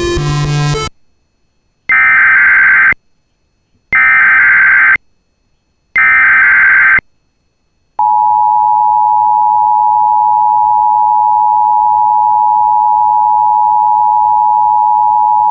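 Music ending under a second in, then three one-second bursts of EAS SAME header data, a raspy digital screech, about two seconds apart. About eight seconds in the Emergency Alert System two-tone attention signal (853 and 960 Hz) starts and holds steady, announcing a Required Weekly Test.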